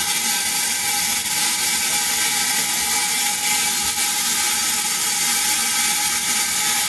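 Spark gap of a homemade high-voltage 'scalar machine' firing continuously: a steady sizzling buzz with a fine crackle, unchanged throughout.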